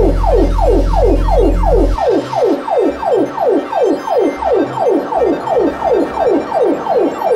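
Modular synthesizer patch playing a repeating downward pitch sweep, about three falling zaps a second, over a low drone that cuts off about two seconds in.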